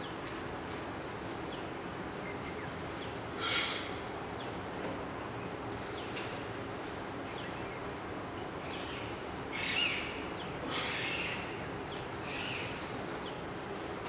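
Steady background ambience with a thin, high, continuous tone, broken by a few short chirp-like calls: one a few seconds in and several more in the second half.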